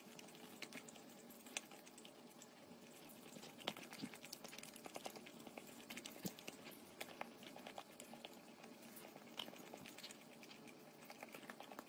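German Shepherd licking a treat held out to it: faint, irregular wet clicks of its tongue, several a second.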